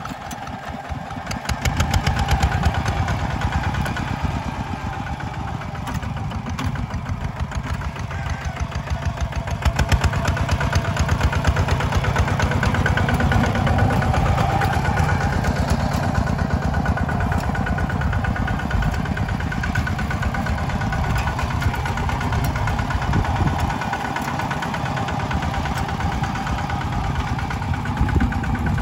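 Two-wheel walking tractor's single-cylinder diesel engine running steadily with a rapid, even beat as it pulls a levelling board across tilled soil, a little louder from about ten seconds in.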